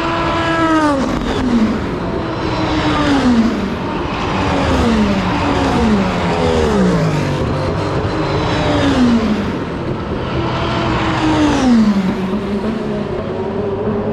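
A string of race cars passing at full speed, one close behind another, each engine note falling in pitch as the car goes by.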